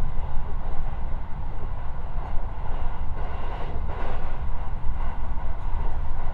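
Cabin noise inside a JR West 223 series electric train running at speed: a steady low rumble of wheels on rail with a mid-pitched running hiss that swells slightly about halfway through.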